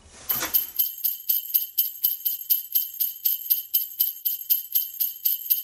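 Sleigh bells shaken in a steady rhythm, about four shakes a second, after a short swish at the start.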